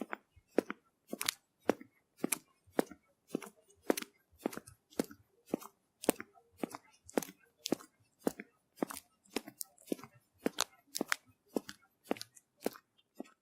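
Footsteps walking at a steady pace, about two steps a second, each step a sharp click-like tap.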